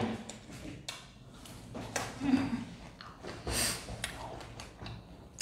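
Quiet eating sounds of fried fish being chewed and picked apart by hand: scattered small mouth clicks and smacks, with a brief low murmur about two seconds in and a short breathy noise a little after three and a half seconds.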